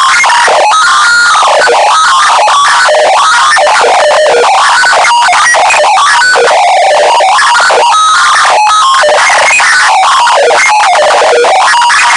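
Deliberately overdriven 'earrape' sound effect: harsh, clipped, distorted noise held at near maximum volume, with short electronic tones flickering in and out of the din.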